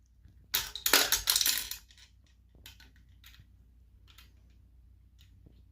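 Gumball machine dispensing as its crank is turned: a clattering rattle starting about half a second in and lasting about a second, then a few faint clicks.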